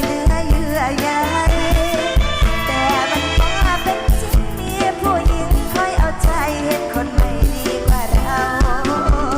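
Isan mor lam band music: a steady drum-kit beat under a wavering, ornamented melody line.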